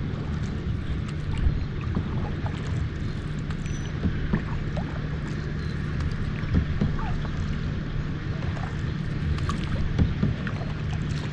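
Water lapping and splashing against the hull of a moving kayak, with scattered small splashes over a steady low hum.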